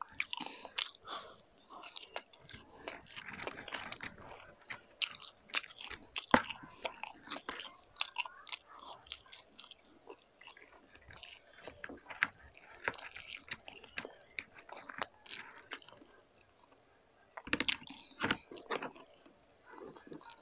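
A person biting and chewing food close to the microphone: dense, irregular crunching and crackling mouth sounds. There is a brief quieter pause late on, then louder crunching.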